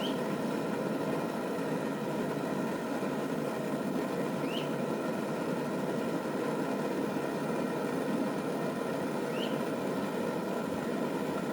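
Steady rushing roar of a torch flame heating a length of pipe to soften it. Three faint short high chirps come about five seconds apart.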